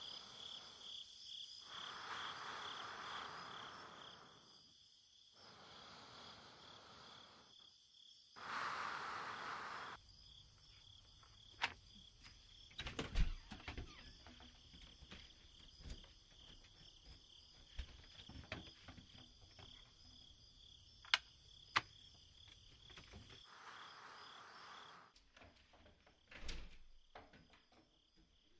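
Crickets chirping steadily at night, with a run of sharp clicks and knocks from a house door's handle and latch as it is worked and opened. About 25 seconds in the cricket sound drops away, leaving a quiet room with a couple of soft knocks near the end.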